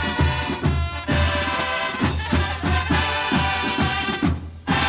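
Drum and bugle corps playing: brass bugles holding full chords over steady drum beats, with a brief break in the playing near the end.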